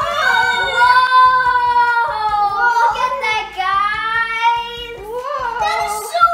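Young girls' voices in long, drawn-out excited cries, several in a row and sometimes two at once, each held for one to two seconds and sliding in pitch.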